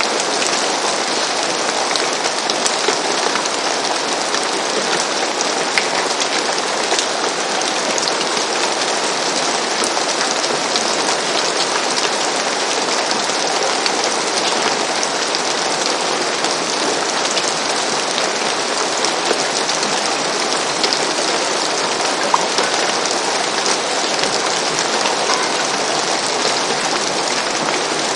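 Steady rain falling on a roof: an even, dense patter with scattered individual drops ticking through it.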